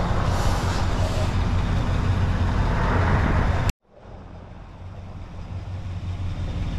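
A motor vehicle engine idling with a steady low hum. The sound cuts off abruptly a little past halfway, then fades back in.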